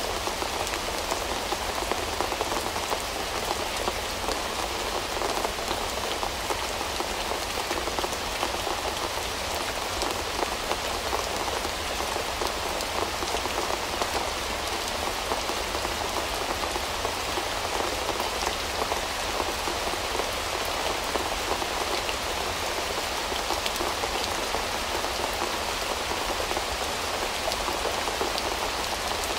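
Steady rain falling, an even wash of sound flecked with many small individual drop ticks, unchanging throughout.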